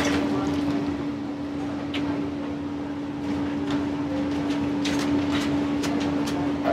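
A kitchen ventilation fan hums steadily with one constant low tone. A few light clicks of utensils come near the end.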